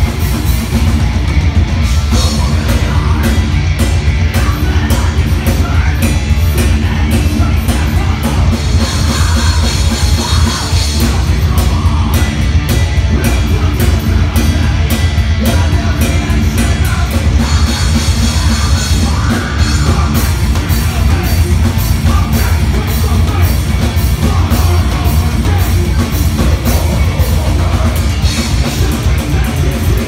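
Heavy metal band playing loud and live: electric guitars, bass and a fast-hit drum kit, with the singer's vocals over the top.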